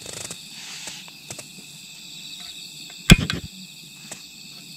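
Insects chirping steadily, with a few light knocks and one sharp clack about three seconds in from camp cookware being handled as the rice pot goes on the heat.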